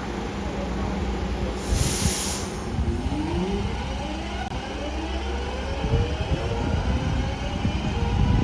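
A train moving off: a steady low rumble, a short burst of hissing air about two seconds in, then tones that rise steadily in pitch as it picks up speed.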